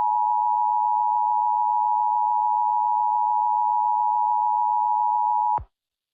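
Emergency Alert System attention signal: a steady two-pitch alarm tone, two close notes sounding together, that cuts off suddenly about five and a half seconds in. It marks the start of a new alert broadcast.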